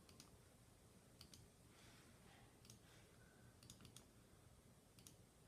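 Faint, scattered clicks of a computer mouse and keyboard used to copy and paste, some in quick pairs, over a near-silent room.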